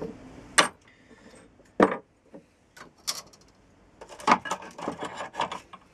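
Hand tools being put down and handled on a wooden workbench: sharp clacks about half a second and two seconds in, then a run of small clattering knocks from about four seconds in.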